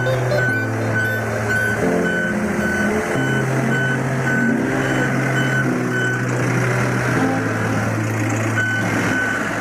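Backhoe loader's reversing alarm beeping about two and a half times a second over its running engine; the beeping stops for a few seconds and starts again near the end. Background music with low held notes plays underneath.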